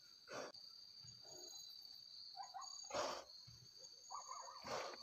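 Crickets chirping steadily, with a sow in labour breathing noisily: three hissing breaths, about half a second in, about three seconds in, and near the end.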